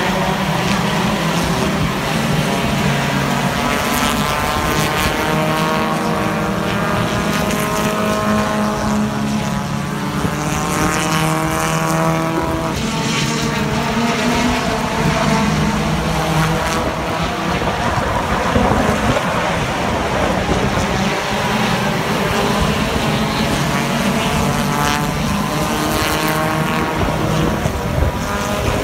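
Several hobby stock race cars running laps on a circle track, their engines rising and falling in pitch over and over as they accelerate and lift around the oval.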